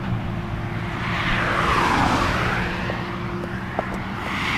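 A motor vehicle passing by on the highway, its noise swelling to a peak about two seconds in, then fading.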